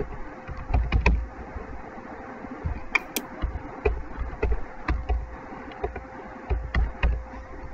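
Computer keyboard keys clicking irregularly as a date is typed in, with dull low thumps among the keystrokes and a faint steady hum underneath.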